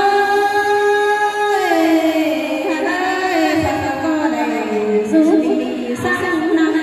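A woman singing a Thái folk song (hát Thái) through a microphone and PA: a long held note that drops in pitch about one and a half seconds in, then a wavering, ornamented melody.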